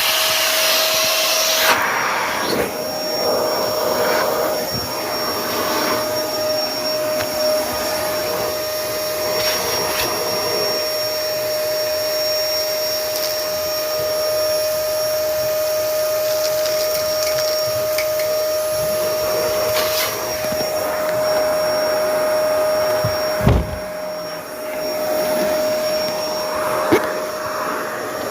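A small electric motor running steadily with a constant whine, with one sharp knock a little over 23 seconds in.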